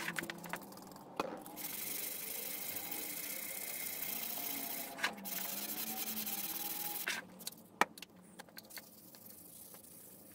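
Steel billhook blade being sanded by hand, a steady hissing rasp. A few sharp clicks and taps come about seven to nine seconds in, after which it goes quieter.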